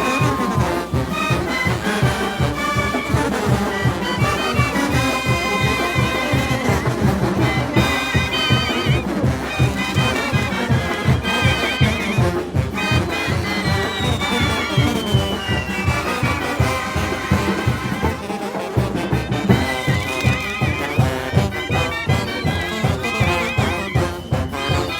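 Live Mexican brass band (banda) music: trumpets and trombones playing a tune over a steady low beat of about two to three pulses a second.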